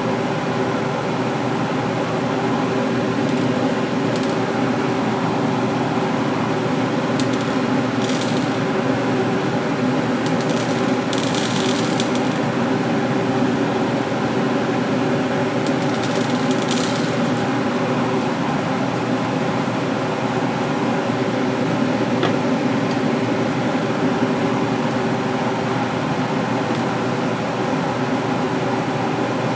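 Steady machine hum with several held tones, like a running fan. Over it, hard dry popcorn kernels clatter onto the glass-ceramic cooktop in three short rattles, the longest about eleven seconds in.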